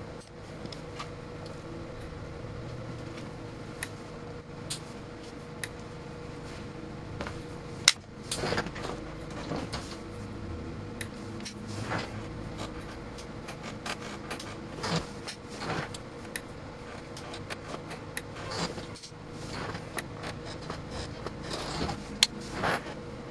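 Scattered clicks and knocks from hands working a UNI-T UT90A multimeter's rotary selector and test setup, with one sharp loud click about eight seconds in, over a steady electrical hum.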